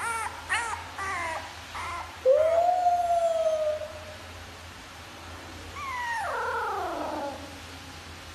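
A dog whimpering in a few short yips, then a long howl held for about two seconds, then a long whine that falls steeply in pitch about six seconds in.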